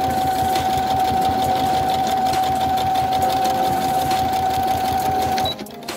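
Brother HC1850 computerized sewing machine stitching at full speed: a steady motor whine over a fast, even needle rhythm, which stops suddenly near the end.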